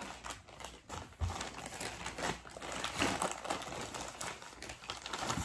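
Plastic mailer bag crinkling and crackling irregularly as it is handled and pulled open by hand.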